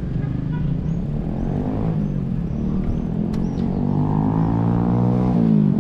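Street traffic with a motor vehicle's engine accelerating: its pitch climbs steadily for a few seconds, then drops sharply near the end as it shifts or eases off.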